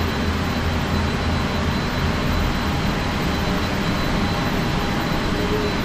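Steady mechanical hum and whir of a cable car station's drive machinery as the cabins travel around the turn.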